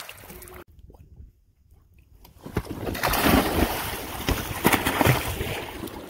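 Water splashing loudly beside an inflatable raft as swimmers thrash in the lake, with several sharp splashes in the second half. A brief near-silent gap comes before the splashing starts, about two and a half seconds in.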